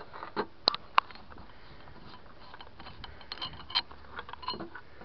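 A few sharp clicks and light knocks, scattered, with quiet between them; the two sharpest come about a second in.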